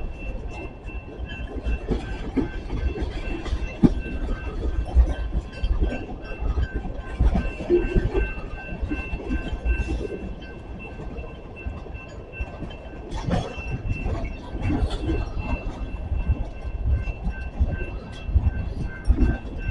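Railroad cars of a passing train rolling by, their wheels rumbling and clacking irregularly over the rail joints, with a faint high ringing tone pulsing in the background.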